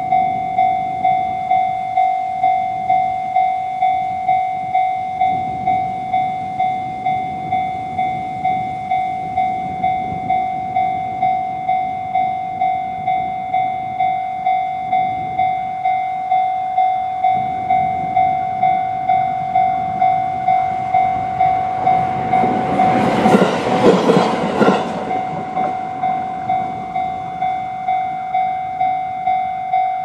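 Japanese level-crossing alarm in the JR East-style electronic bell sound, ringing a steady repeating ding. About two-thirds of the way through, a JR East E129-series electric train passes over the crossing in a brief loud rush of wheel and rail noise. The bell cuts off right at the end once the train has cleared.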